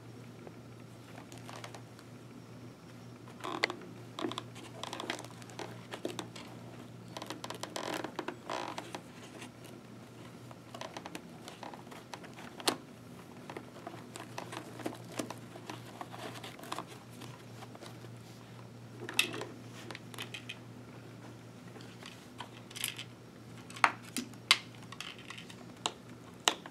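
Hands working inside a motorcycle helmet's padded liner, fitting intercom speakers in place: irregular rustling and scratching of fabric and foam with scattered sharp clicks of plastic parts. A faint low hum sits under the first half.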